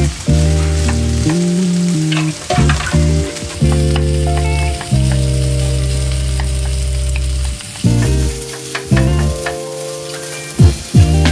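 Rice and shrimp sizzling in a hot frying pan while a wooden spatula stirs and scrapes, with scattered knocks of the spatula against the pan. Background music with held low notes plays underneath.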